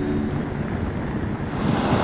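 Heavy rain pouring down, a steady hiss, with the last notes of an acoustic guitar fading out at the very start.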